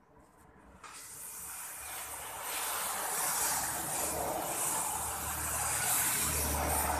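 Gas welding torch burning with a steady hissing flame. The hiss starts about a second in, swells over the next couple of seconds, then holds steady.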